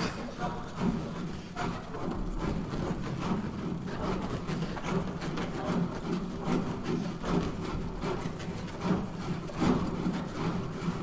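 Hands rubbing and stroking the skin of a large inflatable ball, a continuous rough rubbing made of many short strokes, used as an instrument in a contemporary music piece. Low, steady bass flute tones sound underneath.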